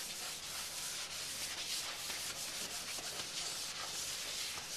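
Paper towel rubbed back and forth over a metal jelly roll pan, oiling it: a soft scrubbing hiss in many quick repeated strokes.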